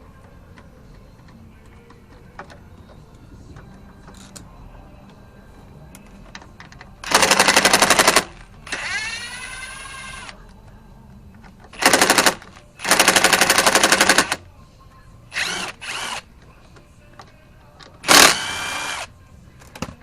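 Impact wrench fired in about six short bursts of rapid hammering. After one burst it spins freely with a rising whine.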